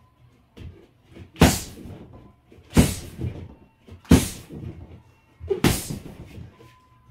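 Four hard strikes landing on a free-standing punching bag, about one and a half seconds apart, with kicks among them.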